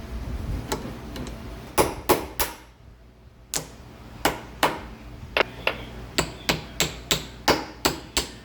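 Hammer blows, a few at first and then a steady run of about three strikes a second.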